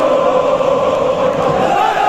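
A stadium full of football supporters chanting together in unison, a loud, steady mass of voices holding a drawn-out sung line.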